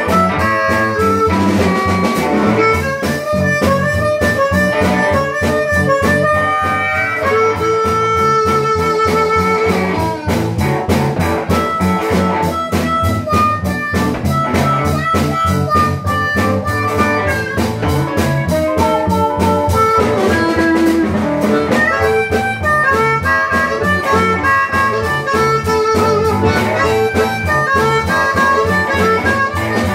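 Live blues band playing: a harmonica carries the lead with held and bending notes over guitar and a steady drum beat.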